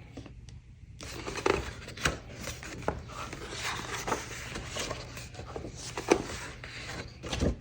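Paper being handled: the rustle of a small booklet and documents with scattered light taps and knocks.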